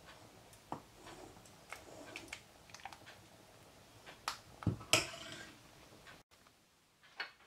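Metal ladle clinking and tapping against a stainless steel pot and a ceramic bowl while thick lentil soup is ladled out, with a louder knock and clatter about five seconds in.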